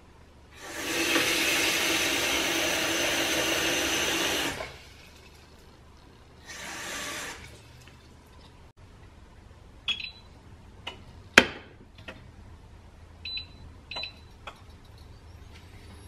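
Kitchen tap running into a stainless steel saucepan for about four seconds, then a shorter second run of water. The pan is then set down on a glass induction hob with a sharp clack, and short beeps follow a few times as the hob's touch controls are pressed.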